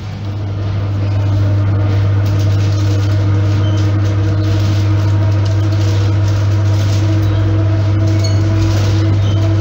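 Inside a moving ER9p electric train carriage: a strong, steady low electrical hum from the traction equipment comes on and swells over about the first second. It then holds steady over the carriage's running noise.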